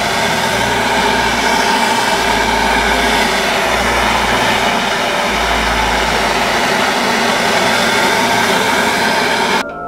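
Handheld gas torch burning with a steady loud hiss that cuts off near the end. The flame is heating a tight press-fit gear on a transmission shaft so it will come free in the press.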